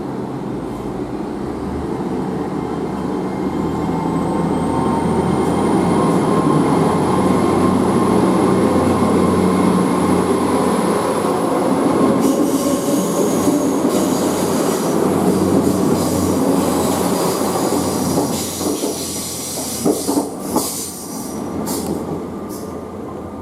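A train passing: steady loud running noise with a high wheel squeal that rises in pitch over a few seconds and then holds. From about halfway, more high squealing and a few sharp clicks, and the sound eases off near the end.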